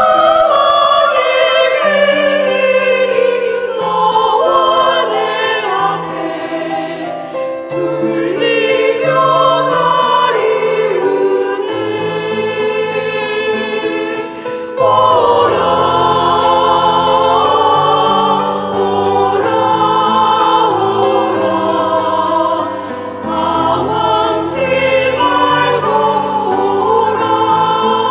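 A women's choir singing a hymn in Korean in several parts, over sustained lower accompaniment notes; the singing grows louder about halfway through.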